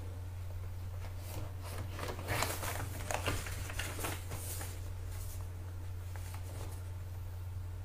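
Low steady electrical hum of room tone, with a handful of soft rustles and clicks between about one and five seconds in, like paper or desk handling noise.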